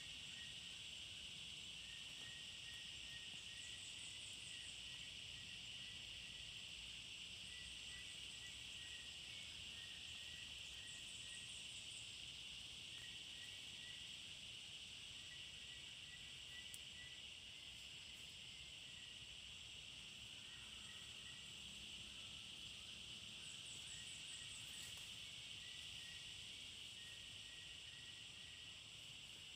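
Faint, steady high-pitched drone of forest insects, with strings of short repeated chirps and a few brief trills over it.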